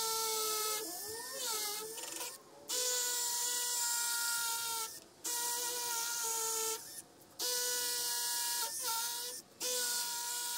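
Cordless drill boring screw holes through fibreglass into a concrete pond wall, its motor whine running in bursts with about four short stops. The pitch wavers for a moment in the first couple of seconds as the bit takes load.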